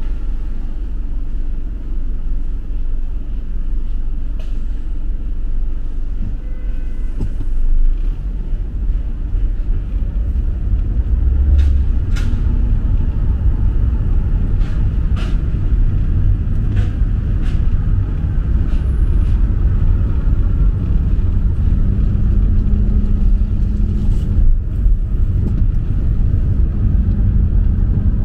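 Road traffic noise from passing cars, a steady low rumble that grows somewhat louder after the first few seconds, with a few scattered sharp clicks and knocks.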